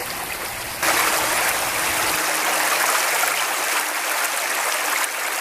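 Shallow creek running over pebbles and rocks with a steady rushing and splashing. It gets suddenly louder about a second in.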